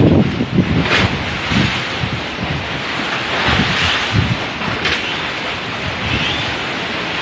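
Strong gusting wind blowing hard and buffeting the microphone with low rumbles, with two brief sharp noises, one about a second in and one near five seconds.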